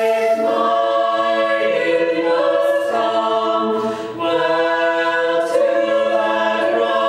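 Choir singing slow, held chords that change every second or so, with a brief break about four seconds in.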